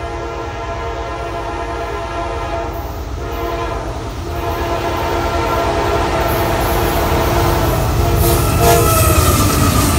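Norfolk Southern freight locomotive, a GE Tier 4 ET44AC, sounding its air horn in long blasts for a grade crossing as it approaches, steadily growing louder. Near the end the locomotive passes with engine rumble and wheel noise on the rails, and the horn's pitch falls as it goes by.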